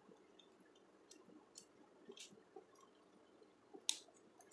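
A few faint, scattered clicks of wire and screwdriver handling at a starter's contactor terminals while a connection is made, with one sharper click near the end.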